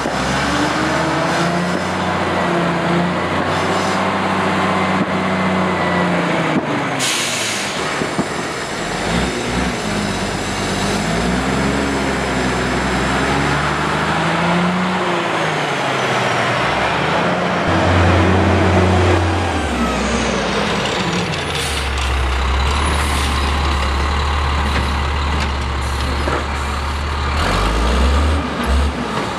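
Peterbilt cabover truck's diesel engine pulling away, its pitch rising and falling as it works up through the gears, with a short air-brake hiss about seven seconds in. Later a steady low drone of an idling truck engine.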